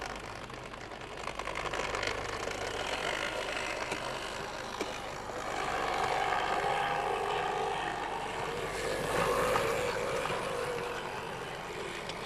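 Electric motor and gears of a model steam locomotive whirring as it runs along the track, swelling louder about halfway through and again near the end before easing off.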